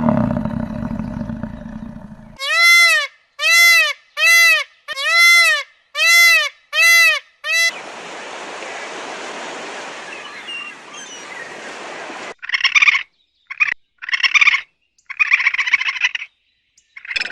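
A run of different animal sounds: a low rumble fading out, then seven short arched calls about two-thirds of a second apart, then a steady outdoor hiss with faint chirps, then a few short buzzy bursts of calls near the end.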